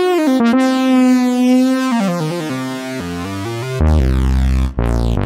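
Modal Electronics Cobalt 8X virtual-analogue synthesizer playing a factory preset: a held note whose pitch steps down in a descending run, then loud deep bass notes from about four seconds in, cut off briefly near the end and struck again.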